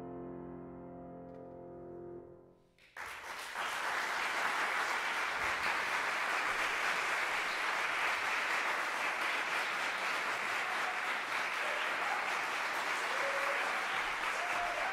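A piano's final held chord rings and dies away. About three seconds in, an audience breaks into steady applause.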